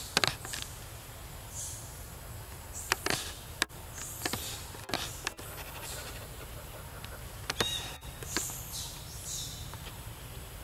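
Outdoor ambience: a steady low rumble with scattered sharp clicks and short, high chirps.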